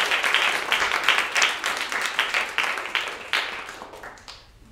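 Audience applauding, the clapping thinning out to a few last claps and dying away about four seconds in.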